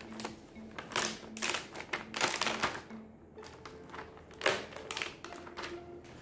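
Plastic cling film crinkling and crackling as it is peeled off a plastic takeaway meal tray, in a run of irregular rustles.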